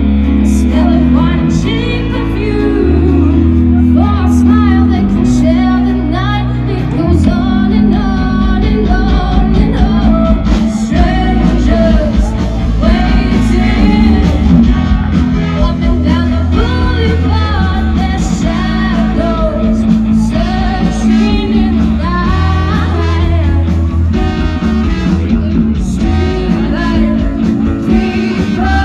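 Rock song with a singing voice, guitar and bass.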